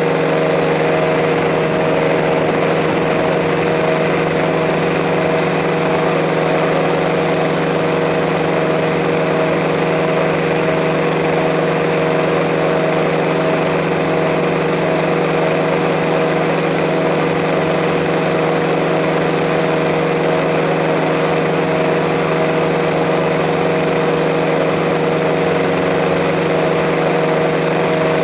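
Multirotor drone's motors and propellers buzzing steadily: a constant, even-pitched hum with several steady tones.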